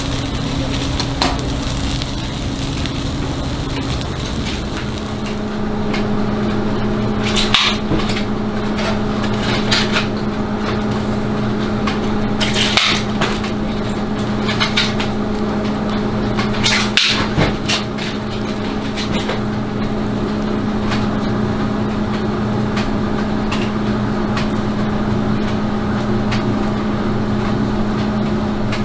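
A steady low machine hum with scattered clatter and knocks of utensils, and a few brief hisses.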